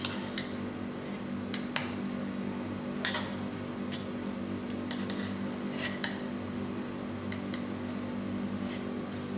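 A utensil clinking and scraping against the inside of a metal cup in about ten irregular, sharp clinks, over a steady low hum.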